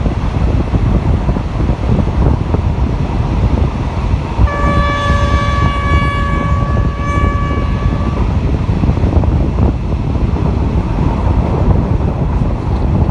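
RHN diesel railcar's horn sounding one long blast about four seconds in, lasting some three and a half seconds, as the train nears a tunnel. Under it the train runs on steadily, with wheel rumble and wind rush through the open window.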